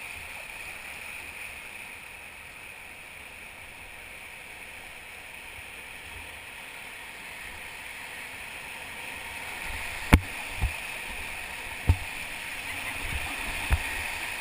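Steady rush of river water around a raft. In the second half come four sharp knocks, a little over a second apart.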